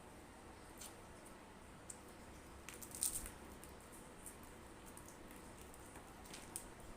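Close-up eating sounds of crispy fried chicken: scattered faint crunches and mouth clicks, with one louder crackly bite about three seconds in.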